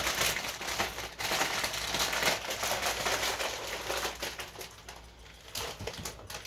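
Potato chips crunching as they are chewed: dense crackling for about four seconds that thins out to a few scattered crunches near the end.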